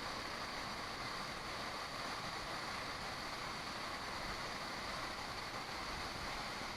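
Steady rushing of a waterfall, an even hiss of falling water with no change.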